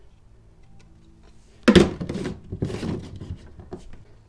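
Plastic oil drain pan and its lid being handled and the lid pressed on: a sudden loud plastic knock and clatter a little under halfway in, then a second rougher rattle and a few small clicks.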